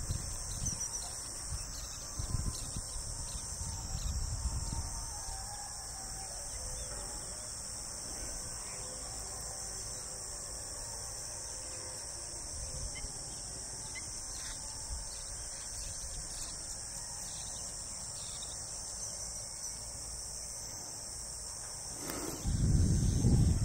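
Steady high-pitched chirring of an insect chorus. Low wind rumble on the microphone comes in during the first few seconds and again, louder, near the end.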